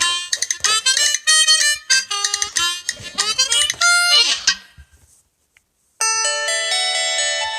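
LG G6 ringtone playing: a fast melody of short, clipped notes that ends about two-thirds of the way in. After a second of silence, the next ringtone starts, with sustained notes ringing over one another.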